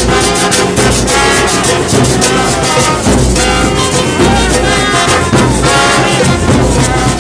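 Murga band playing a lively dance tune: brass horns carry the melody over a steady beat of drums and cymbals.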